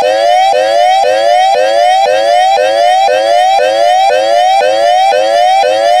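Loud electronic warning siren repeating a quick upward sweep about twice a second, each sweep dropping straight back down before the next.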